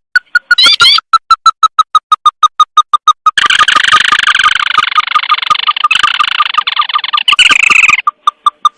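Bird-lure recording of a crake's call: a fast run of short, even piping notes, about eight a second, that breaks into a dense, harsh chattering trill about three seconds in and returns to single piping notes near the end.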